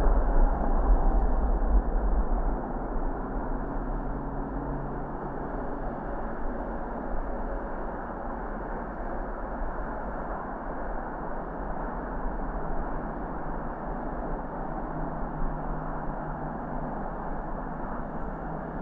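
Car driving on city streets: steady road and engine noise with a deep rumble, a little louder for the first few seconds.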